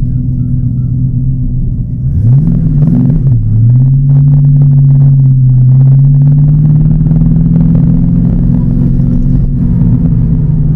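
TVR Chimaera's 4.65-litre V8 engine running under way. About two seconds in it revs up and drops back twice in quick succession, then pulls steadily with the pitch slowly rising.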